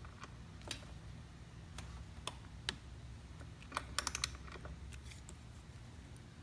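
Light metallic clicks and taps of a socket and torque wrench being fitted onto a bicycle crank arm's cinch bolt, irregularly spaced, with a quick run of several clicks about four seconds in. A low steady hum lies underneath.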